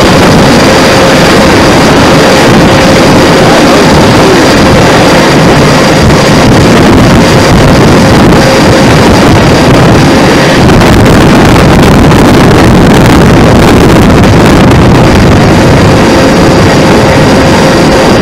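Loud, steady jet-engine noise with a constant faint whine, mixed with wind buffeting the microphone.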